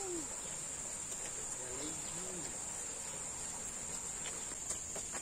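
Steady high-pitched drone of insects in tropical greenery.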